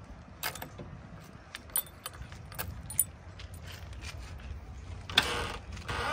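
A bunch of keys jangling and clicking as a key is worked in the cab door lock of a JCB 3DX backhoe loader, with a sharper, louder click about five seconds in.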